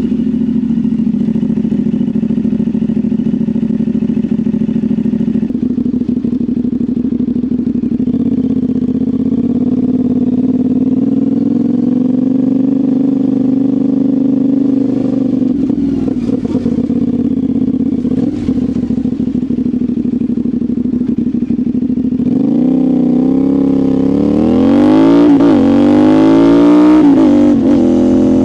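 CFMoto 450SR's 450 cc parallel-twin engine running steadily at low revs through its exhaust, then revving up and dropping back several times in the last several seconds, loudest near the end.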